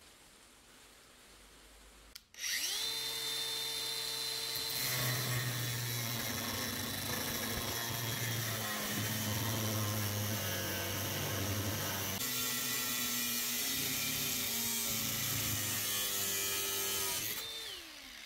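DeWalt angle grinder with a thin cutting disc starting up about two seconds in, its whine climbing to a steady pitch, then cutting into a steel door hinge for about twelve seconds. Near the end it is switched off and the whine falls away.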